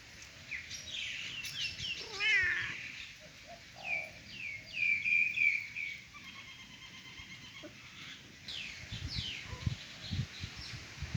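Cats meowing, one of them with a wavering meow about two seconds in, among short high chirping calls. Soft low thumps come near the end.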